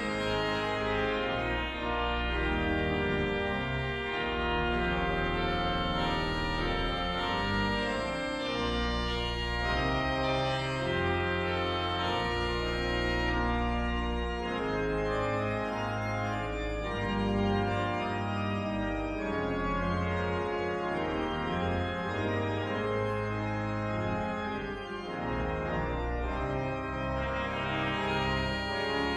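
Pipe organ playing a lively piece in sustained full chords over deep held bass notes that shift every second or two. The sound thins briefly about three-quarters of the way through.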